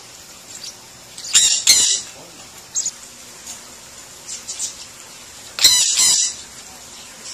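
A parrot squawking: two loud, harsh screeches about four seconds apart, with a few short, soft chirps between them.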